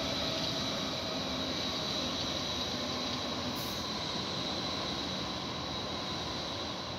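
Stuttgart Stadtbahn light-rail train running slowly past, with a steady high-pitched wheel squeal over the rolling noise. The sound eases slightly as the train moves off.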